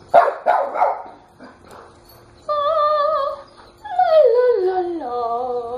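A dog barks a few times, then howls: one wavering held note, then a long note that slides down in pitch.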